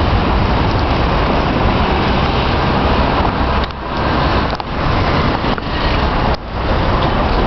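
Loud, steady city street noise of road traffic, dipping briefly a few times.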